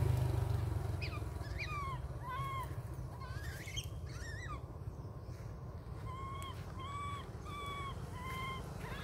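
A young monkey calling: short, clear, arching cries repeated in a string, a cluster early and then five evenly paced calls near the end.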